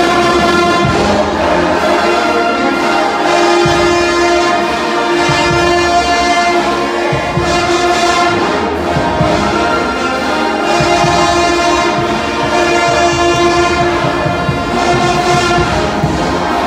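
College pep band playing loudly, brass holding long sustained chords over a drum beat.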